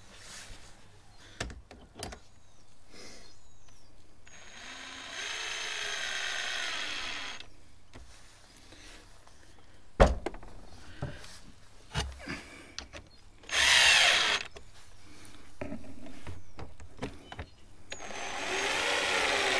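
Cordless drill-driver running in several bursts, driving screws home into a plastic radiator guard and stopping short of full tightness so as not to damage the plastic. Clicks and a sharp knock about halfway through come from handling the tool and parts.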